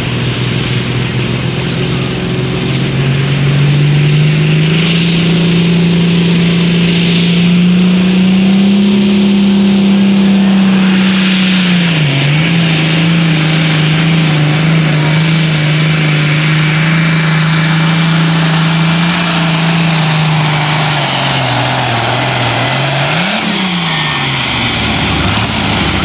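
International Harvester 1066 hot farm pulling tractor's diesel engine under full load, pulling the weight-transfer sled. The engine note climbs in the first few seconds, holds high through the pull, and falls away near the end as it comes off the throttle, with one brief rev just before it settles.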